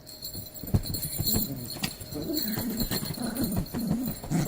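Dog growling in a run of short, low, wavering rumbles, with a few knocks and scuffles in the first two seconds.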